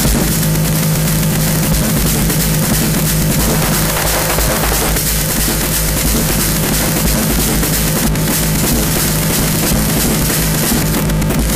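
Loud noise music: a dense, unbroken wall of distorted sound over a steady low drone, with drum-like hits mixed in.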